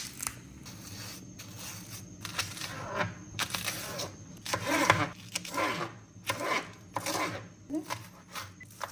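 Spring onions being peeled by hand and then chopped with a knife on a plastic cutting board: irregular tearing sounds and knocks of the blade on the board.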